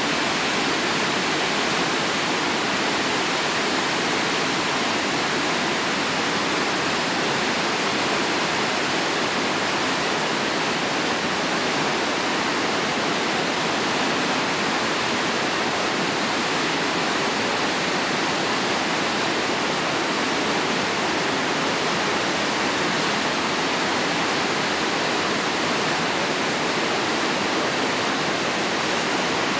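Steady rush of the Uruguay River's white-water rapids and small waterfalls pouring through a narrow rock channel.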